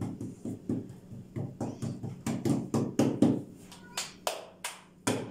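Hands patting and pressing a soft disc of yeast dough flat on a silicone baking mat: a fast run of soft slapping taps, several a second, with a short pause about four seconds in as the disc is lifted and turned.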